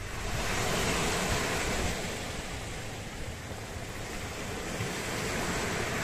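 Sea waves washing onto the beach, the surf swelling in the first two seconds and again near the end, with a low rumble of wind on the microphone.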